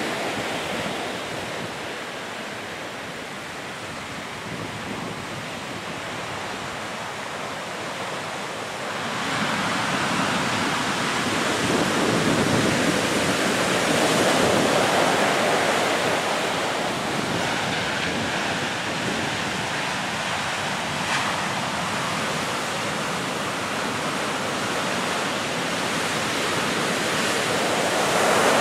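Heavy storm surf breaking and washing up the beach in a steady rushing roar, with a stiff wind. It grows louder about a third of the way in and swells again near the end as bigger waves come in.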